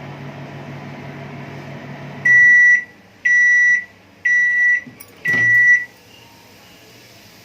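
Microwave oven running with a low hum that stops about two seconds in, followed by four long, loud beeps about a second apart: the end-of-cycle signal that the cooking time is up. A click comes just before the last beep.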